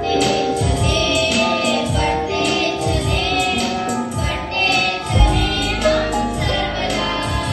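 A group of schoolgirls singing a song together through a microphone, with electronic keyboard accompaniment and a steady low beat about once every three-quarters of a second.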